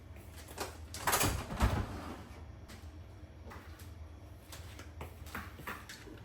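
Household handling noise: a scraping slide with a dull thump about a second and a half in, then scattered light clicks and taps.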